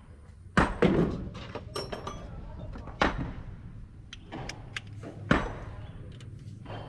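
Metal hand tools clinking and knocking on the open cylinder head of the Kobelco SK200 excavator's diesel engine during injector work: a series of sharp knocks and small clicks, the loudest about half a second in, at three seconds and just past five seconds, over a low steady rumble.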